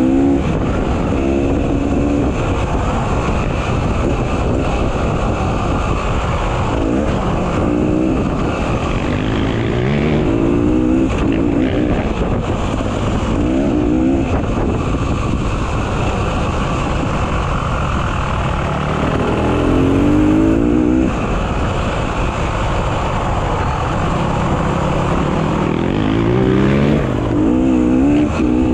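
Dirt bike engine running hard. Its pitch climbs in repeated revs every few seconds as it accelerates.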